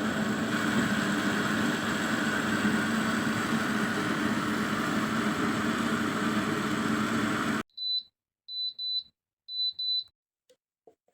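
Countertop blender-type kitchen appliance running at full speed with a steady whir and hum, cutting off suddenly at about three-quarters of the way in. A few short high electronic beeps follow in three small groups, then a couple of faint clicks.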